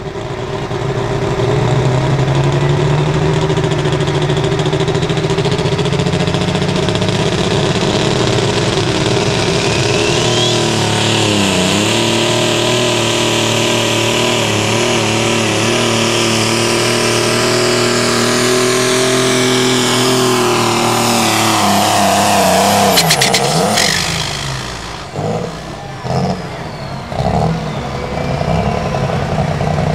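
John Deere Light Limited Super Stock pulling tractor's engine run hard at a steady high pitch under the load of the sled, with a high whine rising over it. A little over twenty seconds in, the revs fall away sharply, and the engine then runs low and uneven with a few throttle blips.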